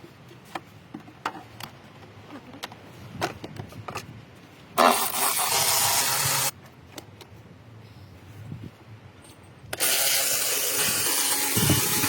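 Two sharp-edged bursts of pressurized hissing spray, the first about five seconds in and lasting under two seconds, the second starting near ten seconds and running about two and a half seconds. Light clicks and knocks of handling come between them.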